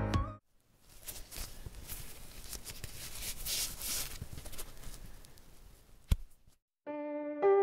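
Faint crackling, rustling noise that swells and fades, followed by a single sharp click; electric piano music begins near the end.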